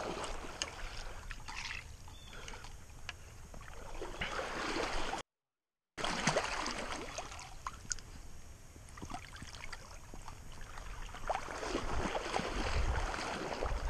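Creek water splashing and sloshing as an angler wades and reaches into the water, with scattered small clicks and knocks. The sound cuts out completely for under a second about five seconds in.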